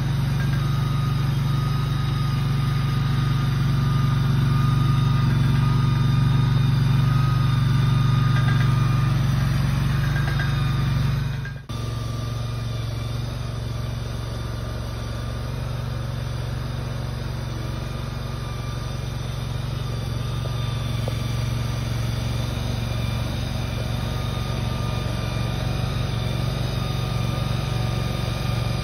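Engine of the machine moving the shed, running steadily at a constant speed. The sound drops out for an instant about twelve seconds in, then carries on a little quieter.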